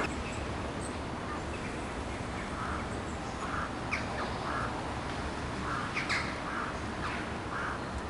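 Crows cawing, a series of short calls about a second apart, over a steady low background rumble.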